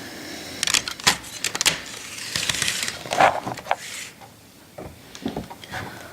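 Hands handling a plastic HO scale model locomotive, with a series of light clicks and knocks and a brief rustle.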